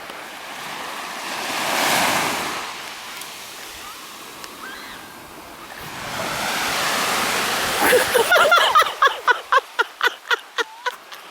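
Sea waves breaking on a beach, with two swells of surf noise, the first peaking about two seconds in and the second building from about six seconds. Near the end comes a rapid string of short, voice-like pitched sounds.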